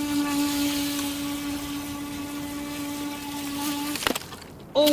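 Electric motor of an H106 mini RC speed boat running flat out, a steady high whine that cuts off about four seconds in with a brief knock. The boat is losing speed on a 7.4 volt battery that the operator thinks is probably dying.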